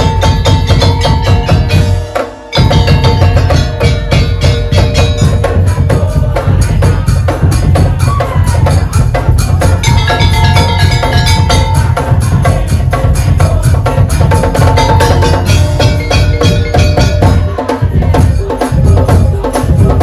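Madurese daul (tong-tong) music: a percussion ensemble playing a fast, driving beat on drums, with a ringing melodic line and heavy bass. The music breaks off briefly about two seconds in, then comes straight back.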